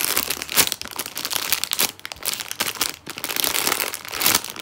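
Clear plastic packaging bag crinkling as hands grip and squeeze a foam squishy toy inside it: a dense, irregular run of crackles.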